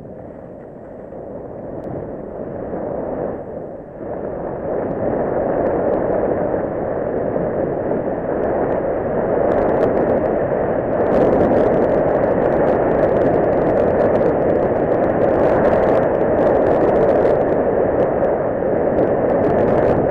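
Rushing wind on the camera's microphone and skis scraping over hard, tracked snow, growing louder as the skier gathers speed during a downhill run. From about halfway there are scattered sharp crackles over the steady rush.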